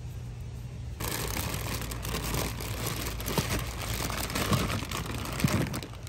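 Crinkling and rustling with scattered sharp clicks, starting abruptly about a second in.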